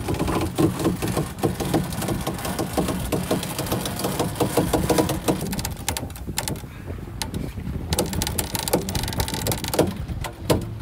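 Sailboat sheet winch cranked by hand, its pawls clicking rapidly in two spells with a short pause near the middle, over a steady low rush of wind and water.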